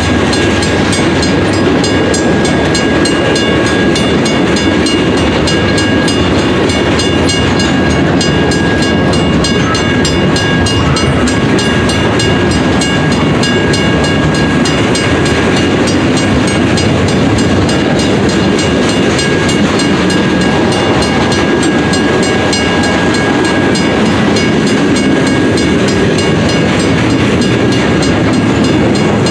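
Freight cars of a long Union Pacific mixed freight train rolling past close by: a steady rumble and clatter of steel wheels on rails, with a steady high ringing tone above it.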